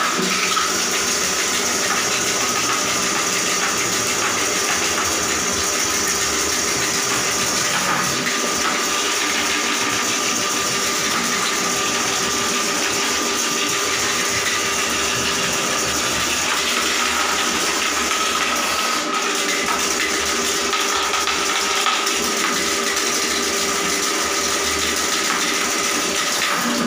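Handheld electric drain-cleaning machine running steadily, spinning its spring-steel cable down a clogged bathroom floor drain, with water from a hose pouring into the drain.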